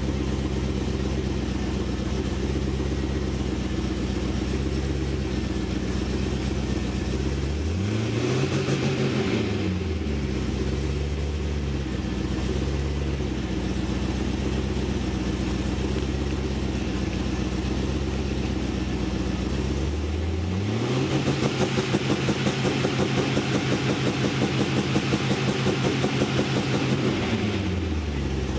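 Twin-turbo LS2 V8 of a 2005 Pontiac GTO idling, with a quick rev that rises and falls about 8 seconds in. Later it is revved against the launch controller's spark-cut limiter, set at about 2,000 rpm, and held there for about six seconds with a fast, even stutter, then drops back to idle.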